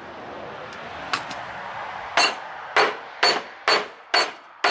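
Half-inch pneumatic impact wrench running steadily on a transmission yoke flange nut for about two seconds. Then come sharp, ringing metal clinks, about two a second.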